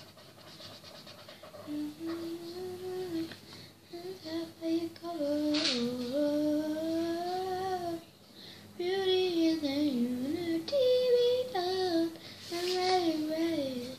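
A young girl singing a tune to herself, held notes that slide up and down, starting about two seconds in with a short pause about eight seconds in.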